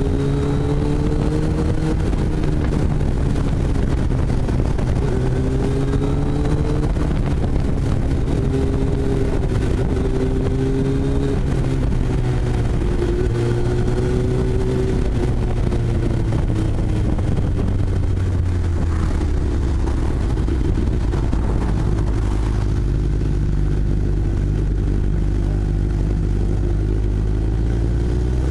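Kawasaki ZX-10R inline-four sport bike engine running at speed, heard through a helmet-mounted camera with heavy wind rush. The engine note wavers with throttle for the first half, drops lower past the middle, and climbs again near the end as the rider gets back on the throttle.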